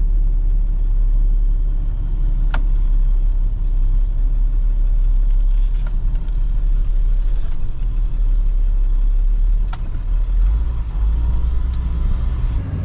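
Truck driving at a steady speed: a loud, steady low rumble of engine and road noise, with a few faint clicks.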